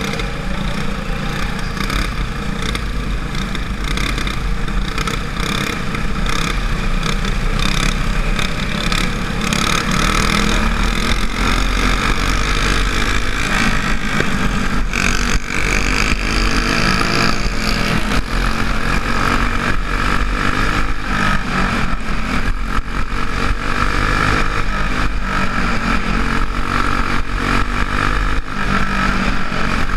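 Racing go-kart engine at full throttle, heard on board the kart. Its pitch rises and falls as the driver brakes and accelerates through the corners.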